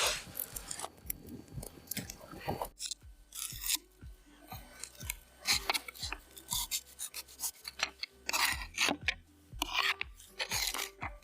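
Irregular short scrapes, rubs and clicks, several a second, over a faint steady low hum.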